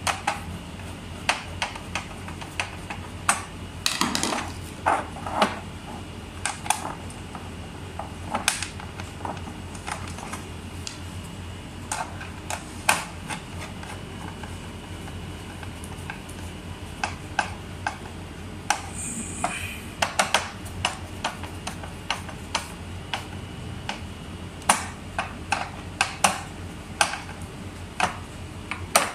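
Hand screwdriver driving screws through steel wall-mount bracket arms into the back of a flat-screen TV: irregular metallic clicks and clinks as the tip, screws and bracket knock together, over a faint steady hum.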